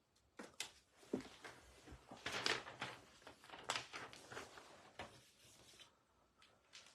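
Handling noise: a string of light clicks, knocks and rustles as small objects are picked up and set down, busiest and loudest about two and a half seconds in, then fading near the end.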